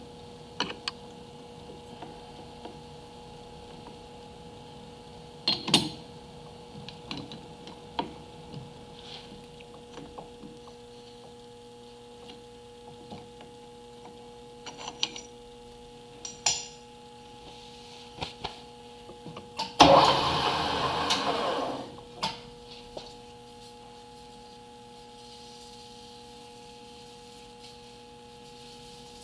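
A metal part being fitted and clamped in a three-jaw lathe chuck: scattered light metal clinks and knocks, then a loud rasping grind lasting about two seconds two-thirds of the way through, over a steady machine hum.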